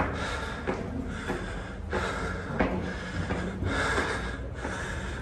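Heavy breathing of a person worn out from climbing steep stairs, breaths coming about once a second, with a few sharp knocks.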